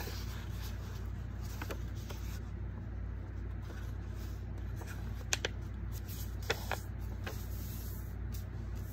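A sheet of construction paper being folded in half and its crease pressed flat on a wooden desk: faint paper handling with a few sharp ticks and a close pair of clicks, over a steady low hum.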